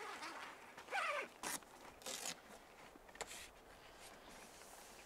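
Several short zipper-like scrapes and rustles of tent fabric being handled. A brief pitched sound comes about a second in.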